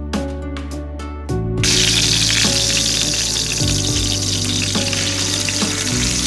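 Fish tail frying in hot oil in a frying pan: a loud, steady sizzle that comes in about a second and a half in, over soft background music.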